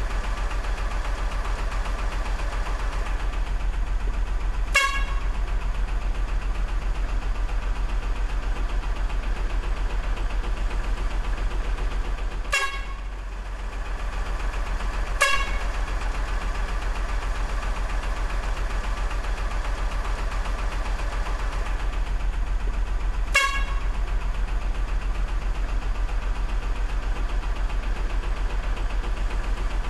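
Truck sound effect: a steady engine drone runs throughout, broken by four short horn toots spread through the stretch.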